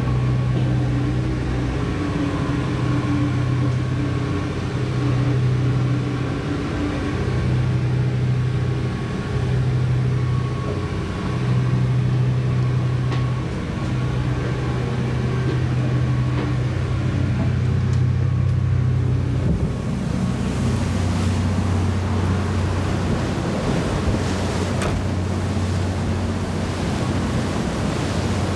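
High-speed passenger craft's engines droning steadily underway, a low hum that swells and fades every second or two. About two-thirds of the way through the hum drops a little lower and the rush of wind and water grows louder.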